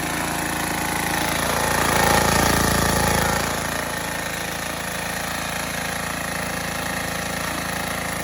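Small gasoline engine of a Troy-Bilt pressure washer running steadily, briefly louder about two seconds in before settling back.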